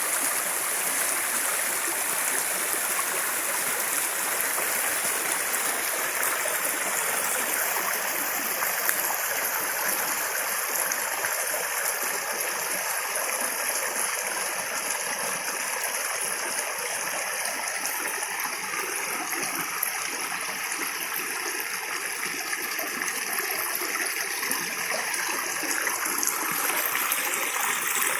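Running water rushing and splashing steadily, like a stream or small cascade.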